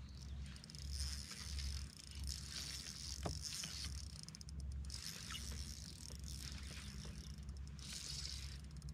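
Fishing reel being cranked in short spells as a hooked bass is reeled toward the kayak, with a click about three seconds in and wind rumbling on the microphone.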